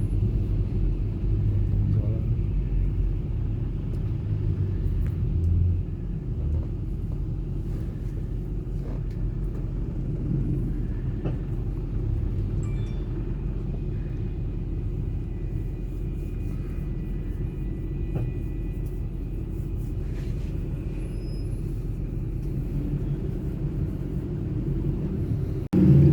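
Steady low rumble of a car's engine and tyres heard from inside the cabin while driving. It drops out briefly near the end.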